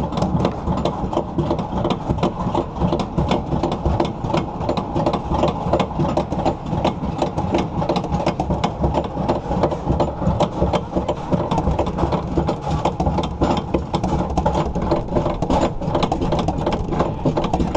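Iron Dragon suspended roller coaster climbing its chain lift hill, heard from aboard the car: a steady low rumble with rapid, even clicking throughout, typical of the lift chain and anti-rollback ratchet.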